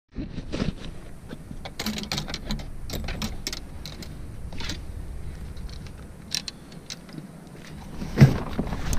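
Handling noise from gear being grabbed in a vehicle's back seat: irregular clicks, clinks and rustling of a bag and clip. A louder thump comes near the end as the vehicle door is opened.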